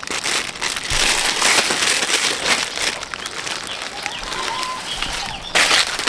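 Loud rustling and crinkling noise, rising and falling in waves, with a short louder burst near the end.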